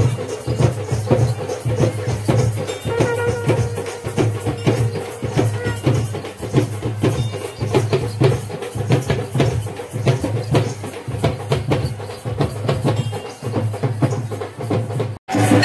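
Fast, dense drumming with a driving rhythm, loud and unbroken, as music for a dance. The sound cuts out for a moment near the end.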